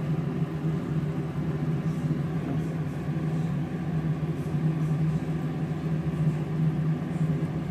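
A small motor running with a steady low hum.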